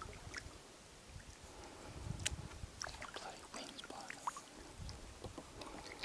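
Kayak paddle strokes: the blades dipping into the water, with water dripping and trickling off them in scattered small drips and splashes.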